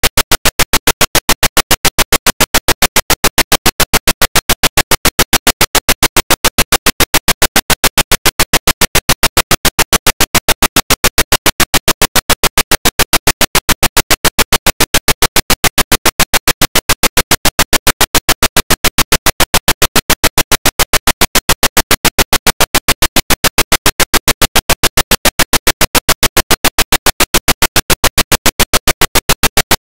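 Loud digital audio glitch: a rapid, even stutter of sharp clicks, about five a second, with nothing else to be heard.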